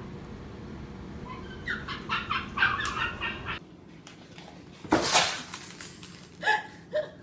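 A string of short, high yips from a small dog, about a dozen in two seconds. Then a loud clattering crash as a cat leaps down onto a dog's food bowl on a tile floor and scatters the kibble, followed by two brief, sharper sounds.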